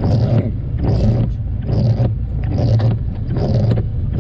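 Car running on a wet road in heavy rain, heard from inside the cabin: a steady low engine and road hum under a regular beat that repeats a little faster than once a second.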